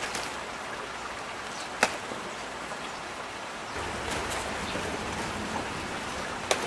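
Steady rain falling, an even hiss, broken by three sharp clicks: one at the start, one about two seconds in and one near the end. A low rumble joins a little past halfway.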